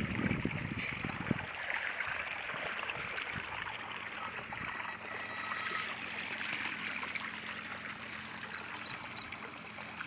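Irrigation water gushing out of a black pipe into a flooded, muddy field basin: a steady rushing and splashing of water. Low rumbling knocks sit under it for about the first second and a half.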